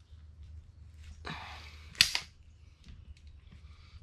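Click-type torque wrench pulled on a cylinder head stud nut until it gives one sharp click about halfway through, reaching the 85 final torque setting. A brief rasp of effort comes just before the click.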